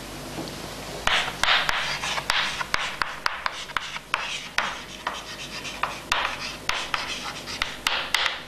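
A chalkboard eraser rubbing for the first second, then chalk writing on a blackboard: a run of scratchy strokes and sharp taps as the letters go down, with short pauses between words.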